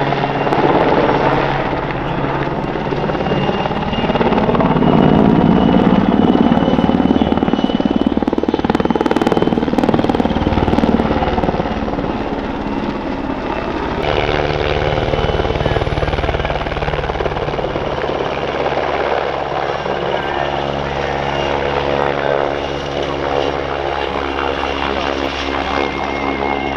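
PZL W-3 Sokol twin-turboshaft helicopter flying display manoeuvres, its main rotor beating steadily over a thin, steady high turbine whine. It grows loudest a few seconds in, then eases off.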